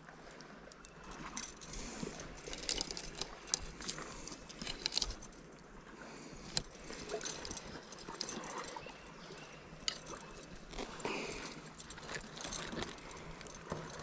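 Metal chain fish stringer jingling and clicking as a trout is handled and clipped onto it, with scattered, irregular clinks and the rustle of a mesh landing net.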